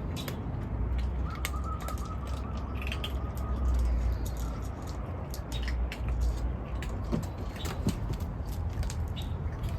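Birds chirping in short, scattered calls, with a faint held whistle-like note early on, over a steady low rumble.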